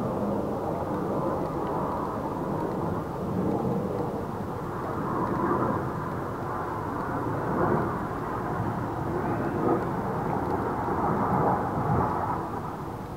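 Jet aircraft passing overhead at an air show display: a steady, low rumble that swells and eases.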